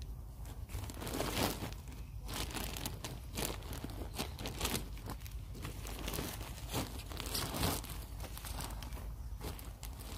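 Irregular crunching and crinkling, several times a second, from soil and compost being handled and worked.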